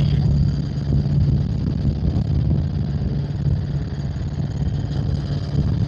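Helicopter in flight: a steady low drone of engine and rotors with a fast low flutter.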